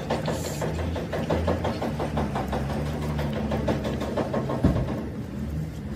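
An engine running at idle with a rapid, even pulse, and one sharp knock about four and a half seconds in.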